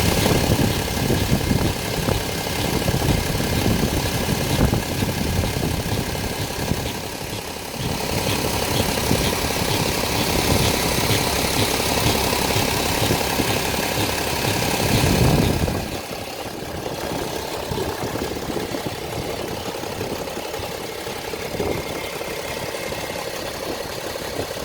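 BMW X3 3.0d's straight-six diesel engine running at idle, with the odd noise from the engine area that the owner cannot place. The sound gets a little louder a little past halfway, then drops to a quieter level about two-thirds of the way through.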